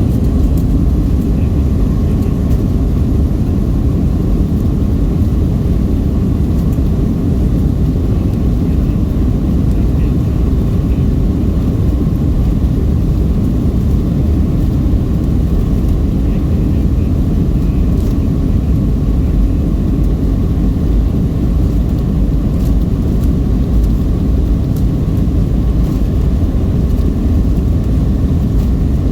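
Boeing 737-700 heard from inside the passenger cabin during takeoff, its CFM56-7B engines at takeoff power: a loud, steady, deep rumble of engine and airflow noise.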